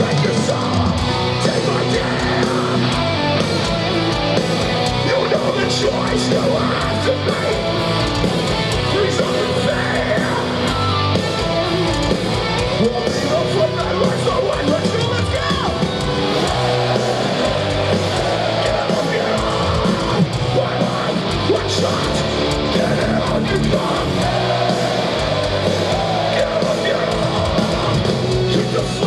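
A metalcore band playing live: distorted electric guitars, bass and drums at full volume, with shouted vocals over them, recorded from within the crowd.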